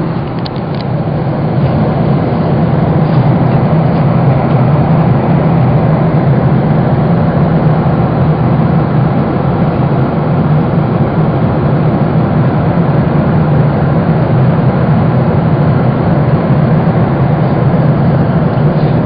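Steady in-flight cabin noise of a Boeing 777: the hum of its twin jet engines blended with airflow, heard from inside the passenger cabin. A few faint ticks come in the first second.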